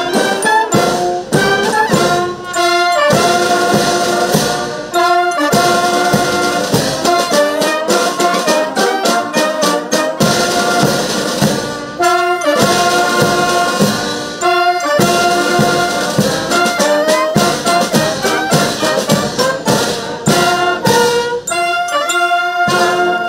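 A ceremonial wind band plays: clarinets, saxophones and brass over snare drums, in phrases with short breaks between them.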